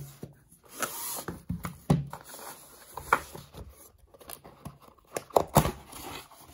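Pokémon booster pack wrapper being torn open and crinkled by hand: irregular rustling and tearing with a few sharp crackles about five and a half seconds in.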